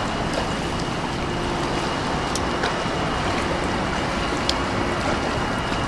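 Steady rushing water noise from a swimmer splashing through pool water during freestyle, with a few faint clicks.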